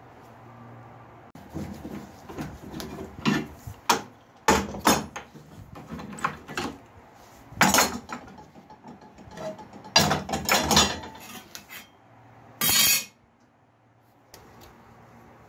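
Steel plates being handled on a workbench: irregular clanks and clinks of sheet metal knocked against metal and shifted. Near the end comes one short noisy burst of about half a second.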